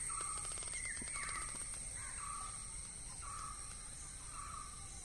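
A crow cawing over and over in short calls, about one every half second to a second, with a steady high-pitched insect drone underneath.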